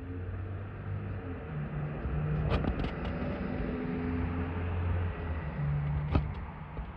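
Street traffic: a vehicle engine running with a low, steady hum that shifts in pitch now and then, and a few sharp clicks about two and a half seconds in and again near the end.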